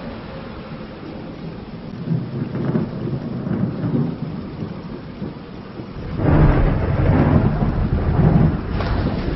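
Thunderstorm: rain falling steadily under low rolling thunder, with a louder, longer thunder rumble building about six seconds in.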